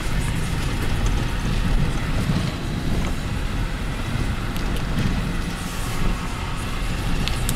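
Car driving on a gravel dirt road, heard from inside the cabin: a steady rumble of tyres on gravel and engine, with a few faint ticks.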